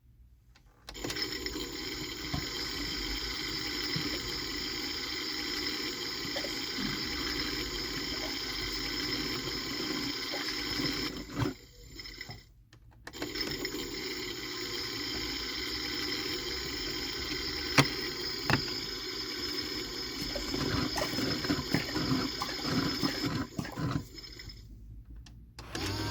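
AEG/Electrolux Lavamat 84950 washing machine draining its rinse water: the drain pump runs steadily with water rushing through it. It starts about a second in, cuts out briefly about halfway, then runs again and dies away near the end.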